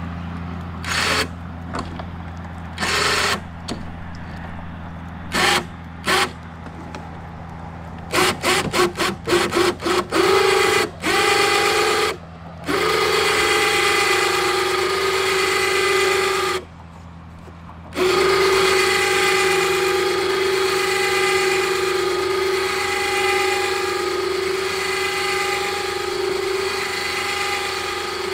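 Battery-powered Harbor Freight 2,500 lb electric ATV winch paying out its wire rope to lower a kayak down poles from a truck roof. The motor whines in short bursts at first, then runs in long stretches, stopping for about a second near the middle.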